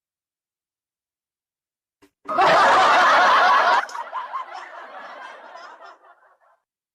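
Canned audience laughter sound effect triggered from a V8 live-streaming sound card. It starts suddenly about two seconds in, is loud for about a second and a half, then fades away in trailing chuckles.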